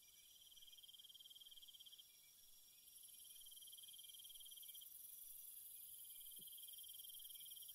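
Near silence with faint, steady cricket chirping.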